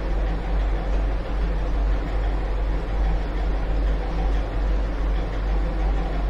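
Steady low hum with an even background hiss, unchanging throughout; no speech.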